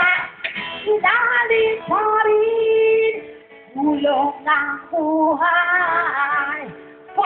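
A young female singer singing into a handheld microphone, with long held notes between shorter phrases.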